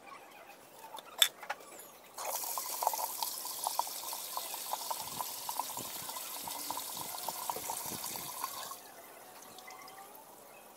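Water running and splashing from a fish pond's drain pipe into the pit below, starting suddenly about two seconds in and stopping a couple of seconds before the end. A sharp click about a second in.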